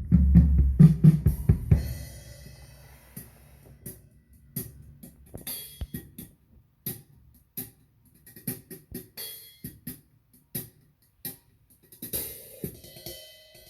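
Drum-heavy music played through an Onkyo Integra A-8250 integrated amplifier and loudspeakers as a sound test after repair. Loud bass and drums for about two seconds, then a sparse passage of separate cymbal, hi-hat and drum hits, with fuller music coming back near the end.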